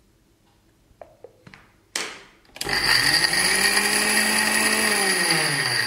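Electric mixer-grinder pulsed briefly to grind almonds coarsely in its steel jar. A few light clicks and a clunk come first. Then the motor runs with a steady high whine over a lower hum that rises as it spins up and falls as it winds down near the end.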